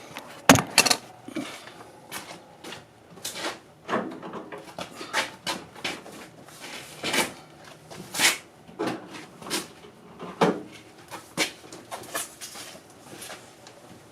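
Irregular clicks, knocks and rattles of a car's trunk latch and lid being worked by hand; the trunk stays shut. The loudest knocks come just under a second in.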